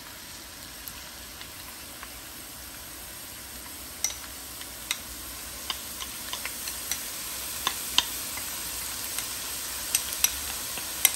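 Minced garlic frying in hot cooking oil in a wok: a steady sizzle that slowly grows louder, with sharp pops and crackles that come more often from about four seconds in.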